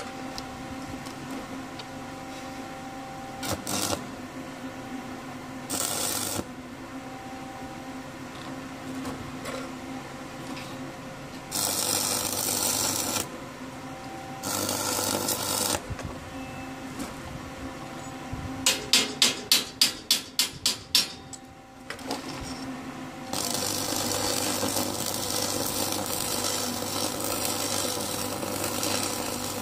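Arc welding crackling and hissing in short bursts of a second or two, then a longer run of about six seconds near the end, over a steady machine hum. Midway comes a fast run of about ten loud, sharp metal strikes.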